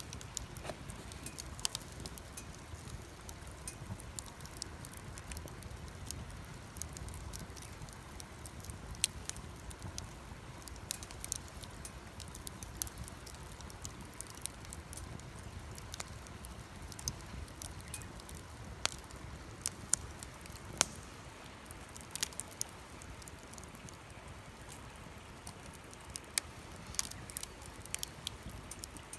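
Wood campfire crackling, with sharp pops and snaps at irregular intervals over a low, steady rumble.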